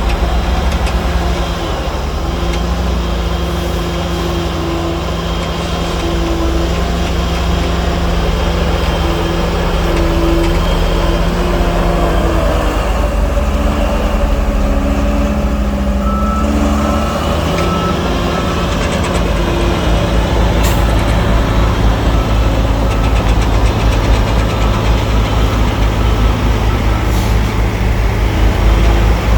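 Heavy diesel earthmoving machinery running steadily. Its engine note shifts about halfway through, and a heavier low rumble builds over the last third.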